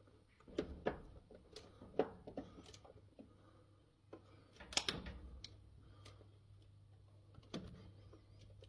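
Scattered sharp clicks and knocks of hands working on electrical equipment, the loudest about five seconds in, over a faint steady low electrical hum.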